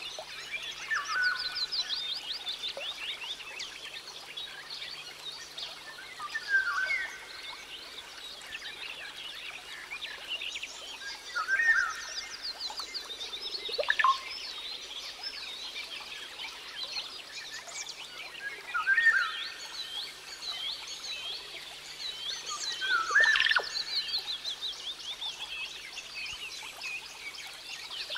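Small songbird singing: fast high chirping trills throughout, with a louder, lower whistled phrase coming back about every five seconds.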